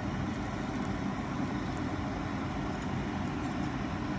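Steady low rumbling background noise, unchanging throughout.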